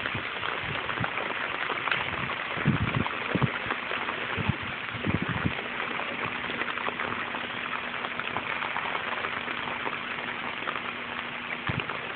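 Steady rain falling on a flooded street, an even hiss throughout. A few low thumps come about three to five seconds in.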